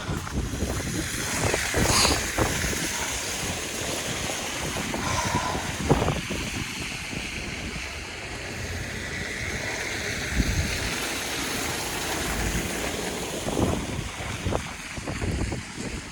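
Strong snowstorm wind rushing over the microphone, a steady buffeting with a few short thuds scattered through it.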